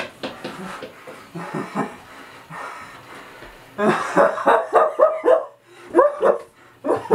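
Wordless vocal sounds: short pitched yelps and gasps, scattered at first and then in a quick run of about a dozen from about four seconds in, with quieter breathy sounds between.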